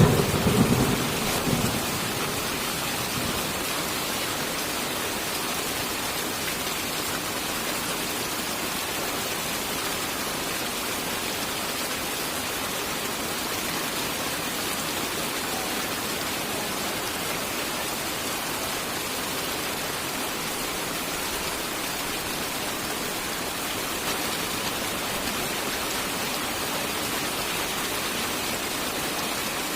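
Steady rain falling as an even hiss throughout. A low rumble of thunder at the very start dies away within about two seconds.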